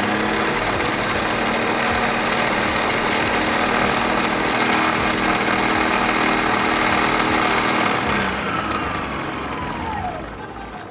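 An electric motor spins up, runs steadily at speed for about eight seconds, then winds down with a falling whine.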